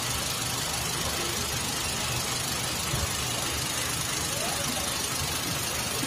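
Hyundai i10 petrol engine idling steadily with no knock, its connecting-rod bearings freshly replaced to cure the bearing play that had caused the noise.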